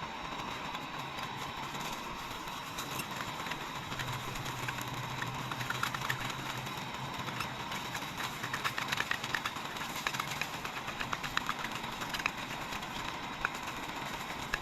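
Eggs frying in hot oil on a gas-canister camping stove: a steady hiss from the burner, with oil crackling and spattering from about five seconds in.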